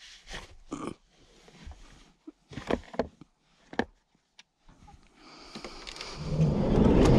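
Light knocks and rustling as shoes are handled in a van's doorway. About five seconds in, the van's sliding side door starts rolling along its track, growing steadily louder toward the end as it closes.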